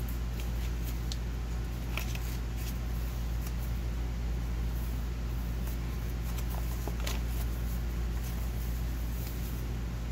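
Pages of a handmade paper junk journal being turned and handled: scattered soft paper flicks and rustles, the clearest about two seconds and seven seconds in, over a steady low hum.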